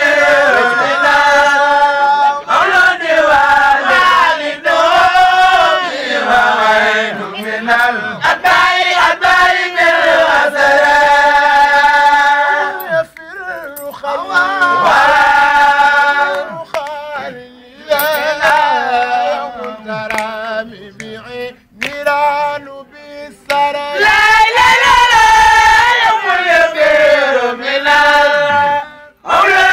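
Men's voices chanting Arabic religious verses in long, drawn-out melodic phrases that bend up and down, with short breaks between phrases.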